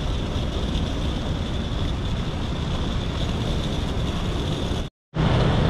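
Steady city street noise: a low rumble of road traffic with a thin, steady high-pitched tone above it. The sound cuts out completely for a moment about five seconds in.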